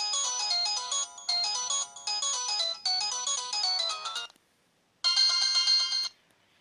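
Samsung X680V mobile phone ringtones: a bright, quick melody in repeated short phrases stops about four seconds in. After a brief pause, a different ringtone plays for about a second.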